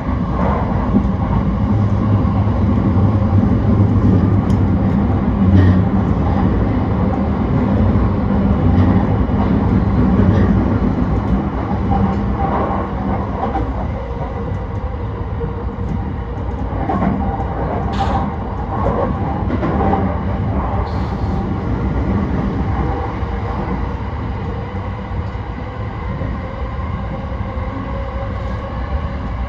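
JR East E235 series 1000 commuter electric train running along the line: a steady rumble of wheels on rail with humming motor tones, louder in the first half, and a few clicks over rail joints.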